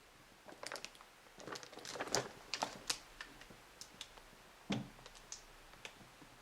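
Irregular sharp clicks and taps, a quick cluster in the first half thinning to a few single knocks later, from hands handling a plastic toy set and its packaging.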